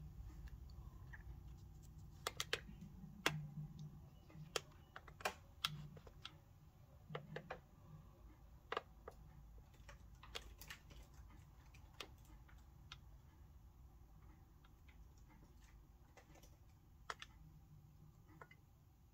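Faint, irregular clicks and light taps, most of them in the first half, over a low steady hum.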